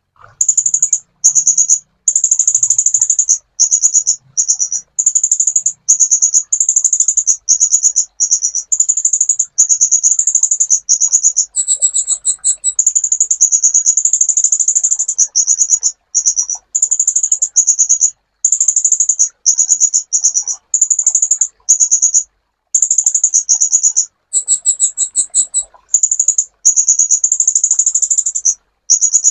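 A sunbird singing a long run of rapid, high-pitched chattering trills, almost continuous with only short breaks. Twice, about 12 seconds in and again about 24 seconds in, it switches to a higher, different phrase.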